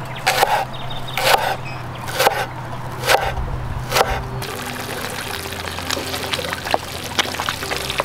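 A large cleaver chopping green onions on a wooden board, one sharp knock roughly every second, five times. About four seconds in the chopping stops and background music carries on with faint scattered ticks.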